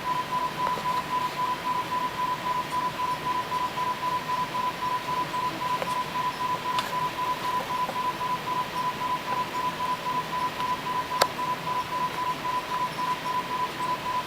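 A steady 1 kHz test tone that wavers in level several times a second, over a constant hiss, with a sharp click about eleven seconds in.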